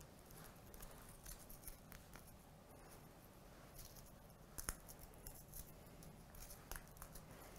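Faint crackling of a cinnamon biscuit being crumbled between the fingers, a scatter of small crunches with the sharpest one about four and a half seconds in.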